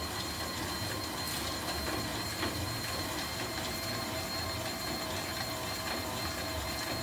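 Homemade popcorn machine running: a steady mechanical hum with a few fixed tones, an uneven low rumble, and scattered short clicks.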